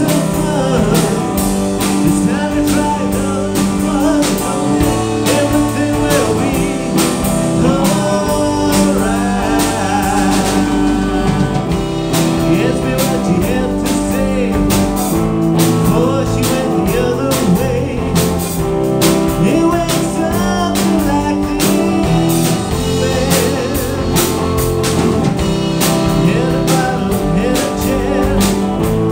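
Live rock band playing a song: a male singer over electric guitar, bass guitar and drum kit, with a steady drum beat throughout.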